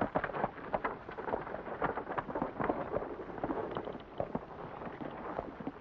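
Hoofbeats of a horse pulling a four-wheeled buggy, with the wheels crunching and rattling over a dirt road: a dense, irregular clatter that eases a little near the end.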